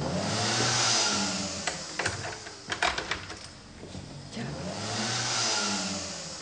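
A motor swells and fades twice, its pitch rising and then falling each time, with a hiss over it and a few sharp clicks in between.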